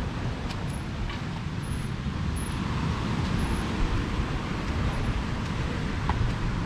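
Steady low outdoor rumbling noise with a couple of faint clicks about a second in.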